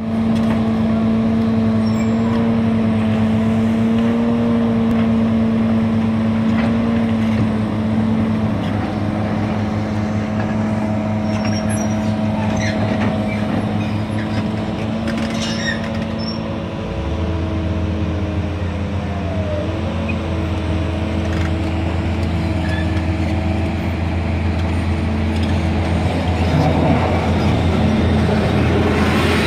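Tracked excavators' diesel engines running on a construction site, with a steady whining tone over them and a few scattered metallic clicks and knocks. About halfway through, a deeper engine drone comes in.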